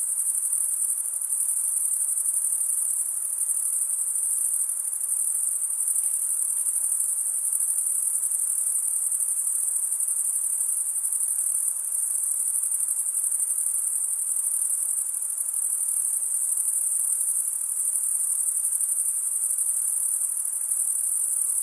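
Crickets chirping in a steady, dense high-pitched chorus.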